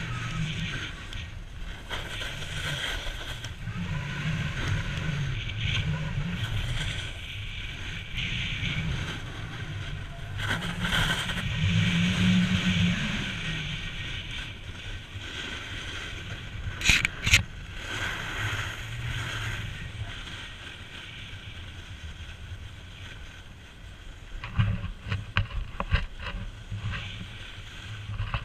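Snowboard sliding and carving on packed snow: a steady scraping hiss that swells and eases with the turns, over a low wind rumble on the microphone. A couple of sharp clicks come a little past the middle, and a cluster of knocks near the end.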